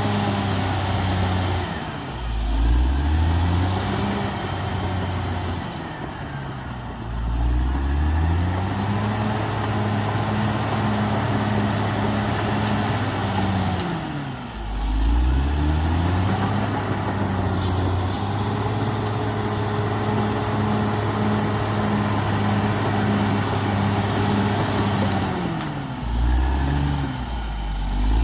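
Caterpillar D6R XL bulldozer's diesel engine working under load. Its pitch drops sharply and climbs back up four times: about two seconds in, about seven seconds in, about half way through and near the end. A thin high whine rises and falls with it.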